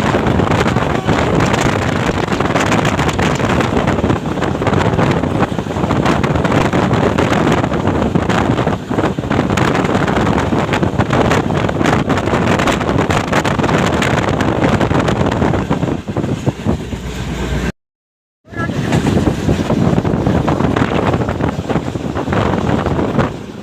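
Steady loud rushing of a moving passenger train, with wind buffeting the microphone. The sound cuts out completely for under a second about eighteen seconds in, then picks up again.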